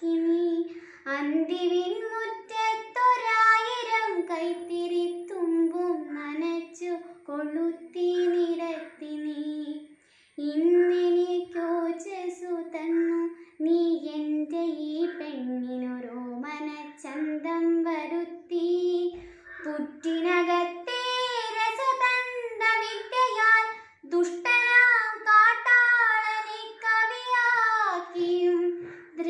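A girl's solo voice singing a Malayalam poem in the melodic kavithalapanam recitation style, unaccompanied, holding and bending long notes with short pauses between lines.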